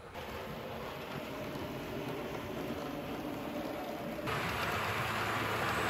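OO gauge model trains running on the layout track: a steady whirring and rattling of motors and wheels on rail. The sound changes abruptly just after the start and again about four seconds in, where it becomes louder and brighter as a train runs close by.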